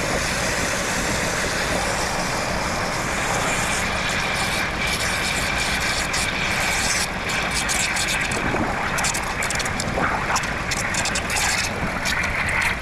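Chrysler 3.6 Pentastar V6 idling rough with a steady misfire, the sign of an engine that the mechanic suspects overheated badly enough to let coolant into the cylinders. Over it, water hisses and bubbles from a hose nozzle into a coolant filling funnel.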